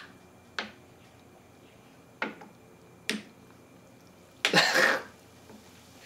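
Draft Top can-top cutter clicking a few times as it is twisted around the rim of an unopened soda can. About four and a half seconds in there is a louder, short rush of noise as the can is cut or gives way.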